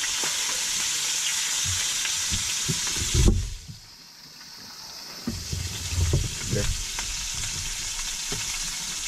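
Brook trout frying in grease in a pan, with a steady sizzle and occasional knocks of handling. After a louder knock about three seconds in, the sizzle drops away for about two seconds, then comes back.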